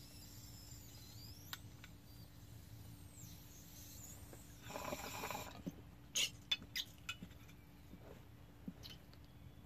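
Water-filled glass bong bubbling for about a second, some five seconds in, as smoke is drawn through it. A few sharp clicks follow.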